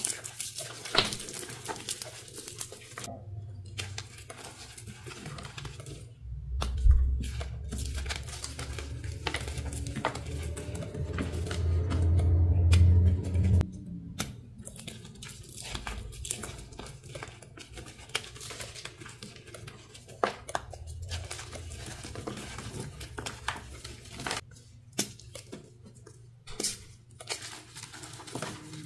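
Dyed gym chalk being crushed and crumbled between the fingers: irregular crunchy, powdery crackles as chunks break apart. A louder low rumble comes in for a few seconds in the middle.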